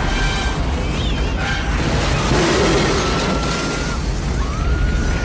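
Film sound effects of an F4 tornado striking: a loud, unbroken roar of wind with booms, crashing debris and electrical sparking, and a thin high whine that comes and goes over it.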